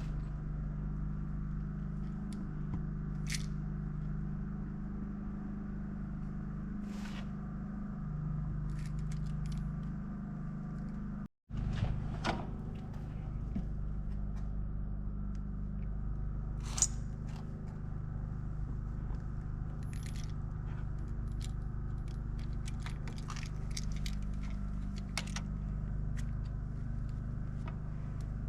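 A steady low engine-like hum, with scattered light clicks and scrapes of small parts being handled. The sound cuts out completely for a moment about eleven seconds in.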